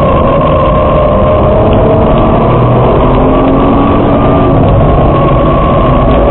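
Nissan GT-R R35's twin-turbo V6 heard from inside the cabin at track speed, mixed with loud wind and tyre noise. The engine note holds fairly steady, with slight rises and falls in pitch.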